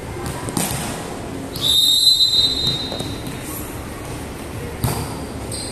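Referee's whistle blown once, a steady shrill blast of about a second and a half, starting roughly a second and a half in. A volleyball is struck sharply about half a second in and again near the end.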